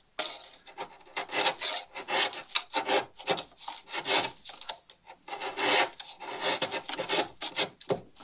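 Wide hand-pushed chisel paring across the end of a plywood plank, roughing down a scarf joint: a run of short, irregular scraping strokes of steel on wood.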